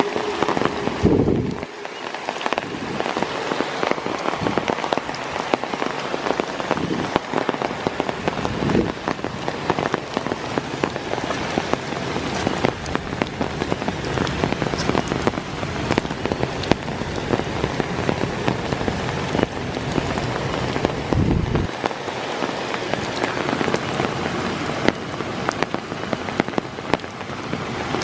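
Heavy rain falling on forest leaves and ground: a dense, steady hiss full of close drop hits, with a few brief low thuds.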